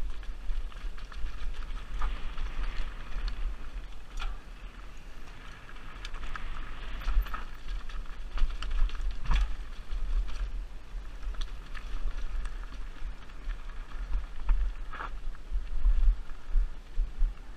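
Mountain bike descending a rocky dirt singletrack: tyres rolling over dirt and stones, with rattles and a few sharp knocks from the bike hitting rocks, the loudest about nine seconds in. A constant low rumble of wind buffets the helmet-mounted microphone.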